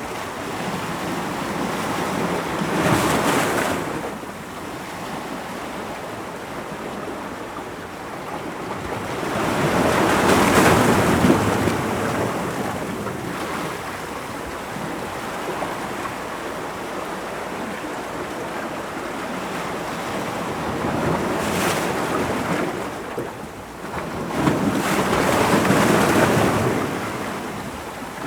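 Ocean waves breaking on rocks: a steady rush of surf that swells with each incoming wave, several times, the loudest about ten seconds in.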